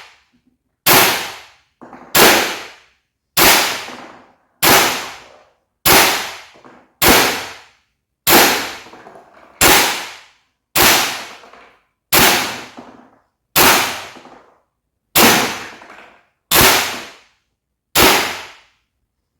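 WE M4A1 V.3 gas blowback airsoft rifle fired in slow single shots, about fifteen evenly spaced reports roughly one every 1.3 seconds, each with a short ringing tail.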